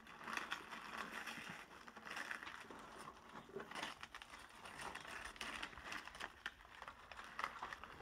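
Gift-wrapping paper being torn and crinkled by hand as a present is unwrapped: a run of quick, scratchy rustles and rips.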